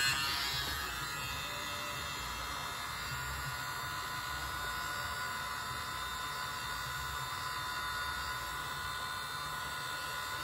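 Mini leaf blower running steadily, a small electric motor's high whine over a rush of air, aimed at wet acrylic paint on the canvas to blow it out into petals.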